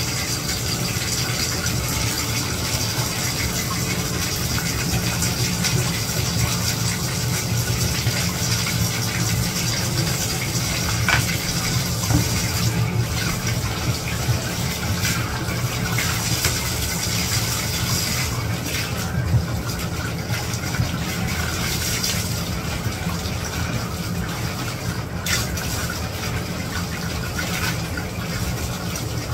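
Bathtub tap running steadily, water pouring from the spout into the tub, with a few faint clicks along the way.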